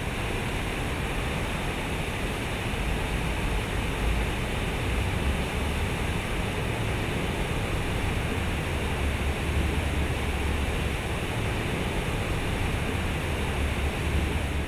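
Large fountain's water pouring from several spouts and splashing into its pool: a steady rushing noise with a low rumble underneath.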